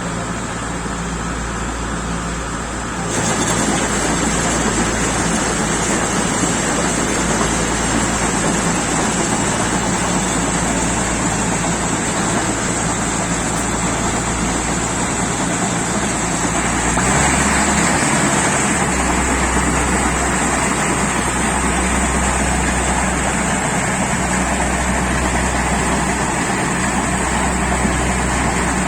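Kubota DC-70 combine harvester running, a steady loud mechanical noise. It steps up louder about three seconds in and changes character again around seventeen seconds.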